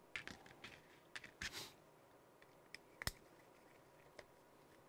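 Quiet clicks, taps and a brief scrape of a plastic RC car chassis being handled and turned over by hand, with the sharpest click about three seconds in.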